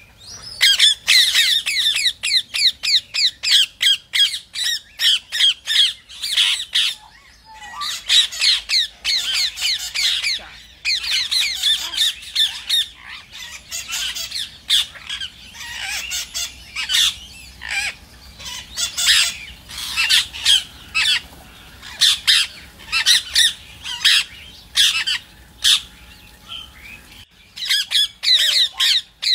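Rose-ringed parakeets calling in rapid strings of short, shrill, high-pitched screeches, with a short break near the end.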